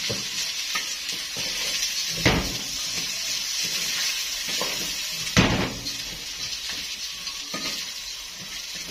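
Basmati rice sautéing in butter and oil in a metal pan, stirred and scraped with a wooden spoon: a steady sizzle with two sharper knocks, about two seconds in and again about five seconds in.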